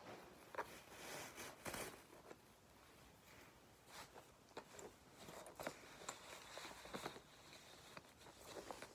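Faint rustling and soft handling sounds of a cloth drawstring dust bag being pulled open and a bag drawn out of it, with a few light clicks and scrapes.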